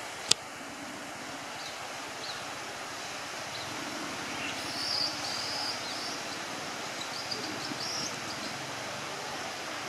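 Outdoor ambience dominated by the steady rush of a nearby river, with faint high chirping calls around the middle and again near the end. A single sharp click comes just after the start.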